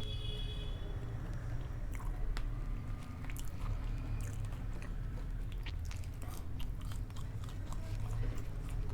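A person chewing and biting food close to the microphone, with many irregular crisp crunches and wet mouth sounds.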